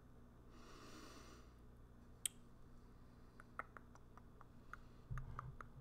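Soft mouth clicks and lip sounds of inaudible, mouthed reading close to the microphone, with a brief soft hiss about a second in, one sharper click just after two seconds, and a low thud near the end.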